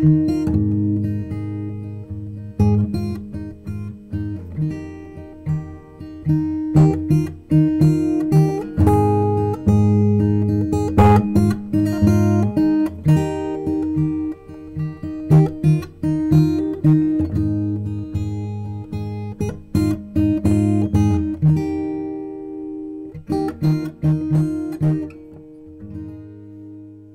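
Background music of an acoustic guitar, picked notes over held low notes, fading out near the end.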